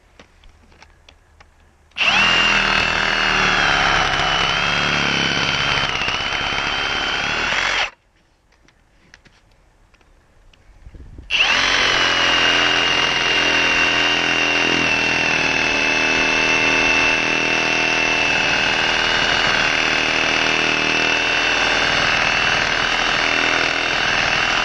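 Milwaukee M18 Fuel Sawzall cordless reciprocating saw running at full speed, its heavy-duty wood blade cutting into a wet tree stump. It runs in two long bursts: the first starts about two seconds in and lasts some six seconds; after a pause of about three seconds, the second starts and keeps going steadily.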